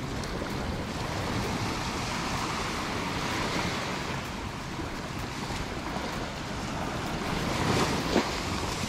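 Ocean surf washing in, a steady rushing noise that swells louder for a moment near the end, with wind buffeting the microphone.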